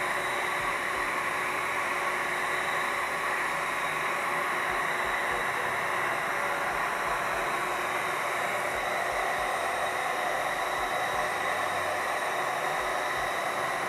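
Şmart window-cleaning robot's suction fan running steadily: a constant whirring hiss as the vacuum holds the robot against the glass while it wipes its way down the pane.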